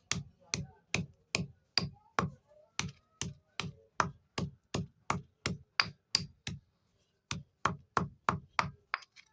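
Brittle chalk-like sticks being crushed in a steady run of sharp crunches, about two and a half a second, each with a dull thud beneath a crisp crack, pausing for about a second near seven seconds in.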